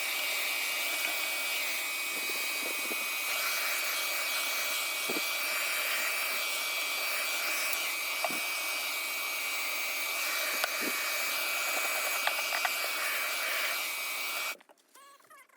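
Steady rushing air from a small electric motor-driven cleaner, with a high whine running through it and a few light clicks. It cuts off abruptly near the end, leaving faint squeaky scraping.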